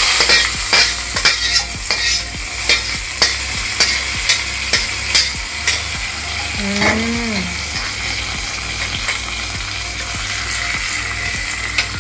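Hot tempering oil with dried red chillies and curry leaves sizzling as it is scraped from a steel kadai into yogurt curd for dahi baigana. A metal spatula clicks and scrapes against the kadai about twice a second during the first half, and the hiss carries on more softly after that.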